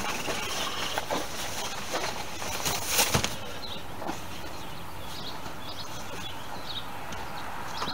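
A new car headliner being handled, its material rustling and flapping as it is spread and pulled into place, with one louder crackling rustle about three seconds in.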